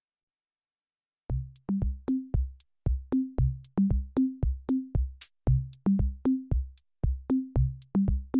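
Silence, then background music starts about a second in: an electronic drum-machine beat with a stepping bass line and short high ticks.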